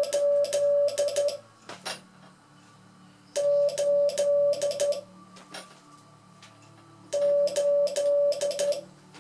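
Morse code sent on a hand straight key: a steady beeping tone of about 600 Hz keys the digit 8 (dah-dah-dah-di-dit) three times, a few seconds apart, with the click of the key's contacts on each stroke.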